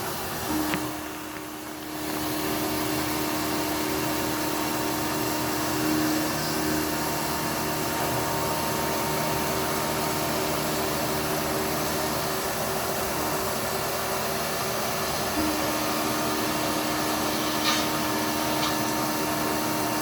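Haas 5-axis CNC mill running, a steady whirring drone with a steady hum tone through it that comes up about two seconds in; a couple of faint ticks near the end.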